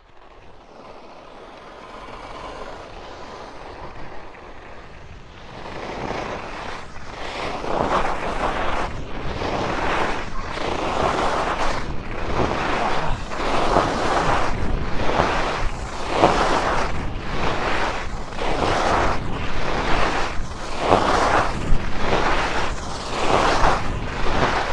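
Ski edges carving into icy, hard-packed snow: a scraping hiss that swells with each turn, about one a second, louder from about five seconds in. Wind on the microphone underneath.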